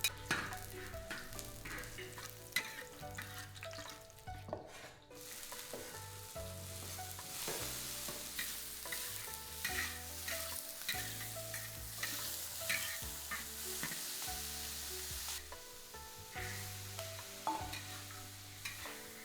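Stir-frying in a wok: food sizzling in hot oil while a spatula scrapes and clinks against the pan. The sizzle grows louder about five seconds in.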